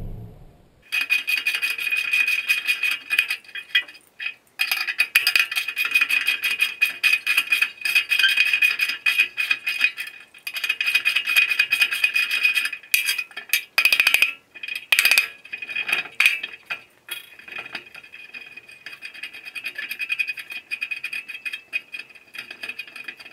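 Socket ratchet wrench clicking rapidly in runs with short pauses as the bolts holding a boat trailer's wooden bunks are backed off, metal on metal.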